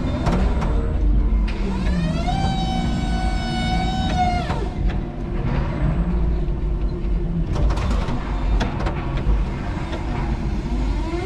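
Electric forklift truck working: a low rumble of driving and handling throughout, with an electric motor whine that rises, holds steady for about two seconds and falls away. A few knocks and clatters are heard near the start and again later.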